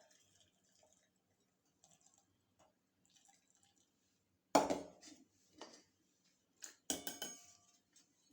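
Kitchen utensils knocking and clinking: a sharp clatter about four and a half seconds in, then a couple more knocks around seven seconds.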